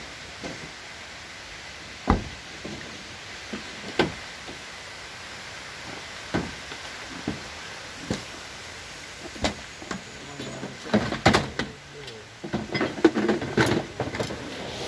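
Scattered sharp knocks and thumps, about one every two seconds, over a steady hiss. Near the end they turn into a busier run of knocks and clatter.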